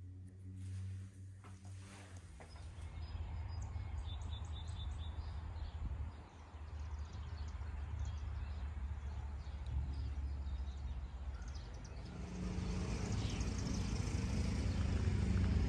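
Wind rumbling on the microphone outdoors, with birds chirping briefly a few seconds in. A low steady hum comes in about twelve seconds in and grows louder toward the end.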